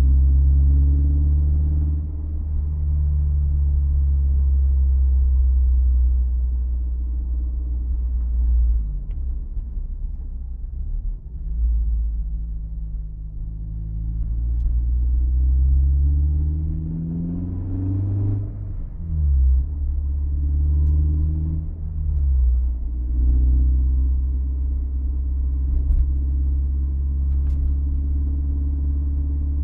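Honda S2000's four-cylinder engine and drivetrain running as the car is driven, a deep rumble whose pitch rises and falls several times, with a few faint ticks. The owner is chasing a rattle or knock from the transmission.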